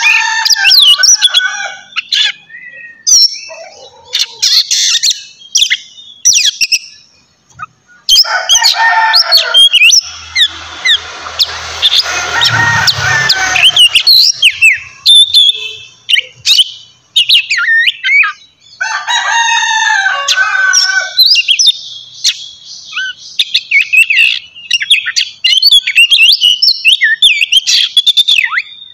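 Oriental magpie-robin (kacer) singing loud, varied phrases of quick high whistles, chirps and trills, broken by short pauses, with a rougher, harsher stretch about ten seconds in.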